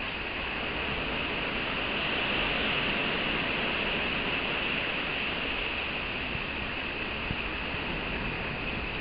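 Steady outdoor background hiss with no distinct calls, strongest in the upper-middle range and swelling slightly a couple of seconds in.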